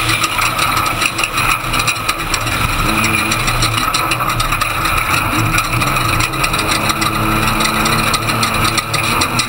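Ford Ranger desert race truck's engine running, heard from inside the cab, with its pitch shifting partway through. A steady wash of noise and frequent rattles run over the engine.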